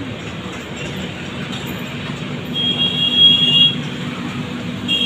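Steady low hum with background noise, and a high steady beep held for about a second, about two and a half seconds in.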